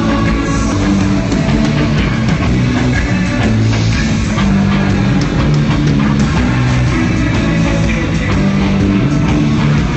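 A live rock band playing loud, with electric guitar and bass to the fore.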